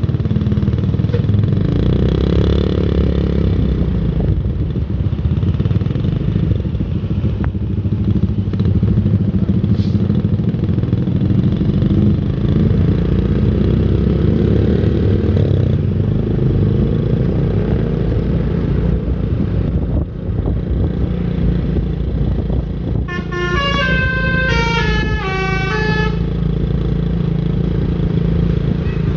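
Steady road and engine rumble from traffic. About 23 seconds in, a bus's Basuri musical horn plays a quick tune of short notes stepping downward, lasting about three seconds.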